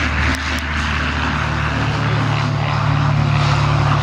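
Vintage de Havilland twin-engined biplanes flying a display, their piston engines and propellers making a steady drone.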